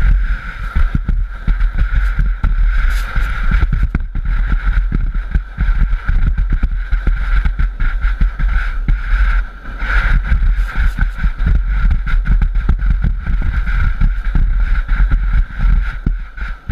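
Towed sandboard sliding over rippled dune sand: a steady hissing scrape from the board's base, a deep rumble of wind and board vibration, and many small knocks as it bumps across the ripples.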